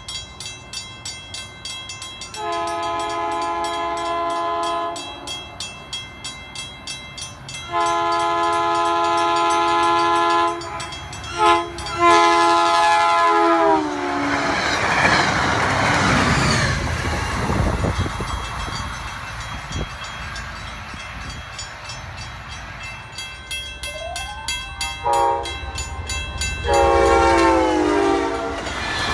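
Grade crossing bell ringing while a CTrail Hartford Line passenger train sounds its horn for the crossing in the long, long, short, long pattern, the last blast dropping in pitch as it reaches the crossing. The train then rumbles and clacks past; near the end the bell rings again and a second train's horn sounds, also dropping in pitch.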